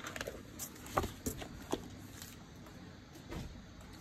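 A handful of soft knocks and handling sounds as a large hardcover book is picked up and moved off a table, the loudest knock about a second in.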